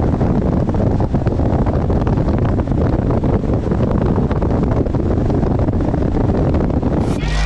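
A bass boat running at speed, its outboard motor's drone buried under loud, steady wind rush on the microphone.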